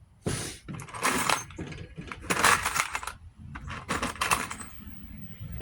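Metal parts clattering and clinking as they are handled, in four or five short bursts about a second apart.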